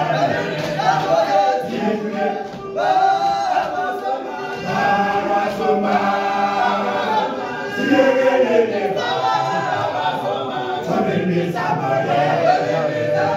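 All-male a cappella choir singing in close harmony in the Zulu isicathamiya style, several voice parts held and moving together without instruments.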